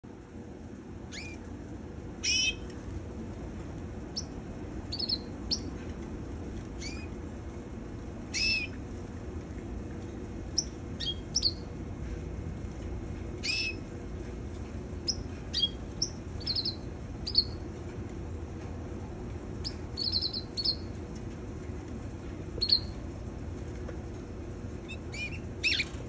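Caged canaries giving short, separate chirping calls every second or two, each dropping quickly in pitch, over a steady low background hum.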